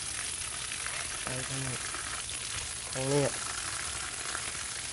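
Steady hiss of background noise with two short, low voiced sounds from a man, like brief hums or grunts, about a second and a half and three seconds in.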